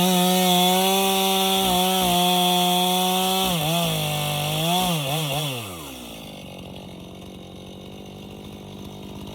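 Stihl MS 291 two-stroke chainsaw running at high revs. The revs dip and recover a few times, then fall off about six seconds in and settle to a lower steady run, the throttle released to idle.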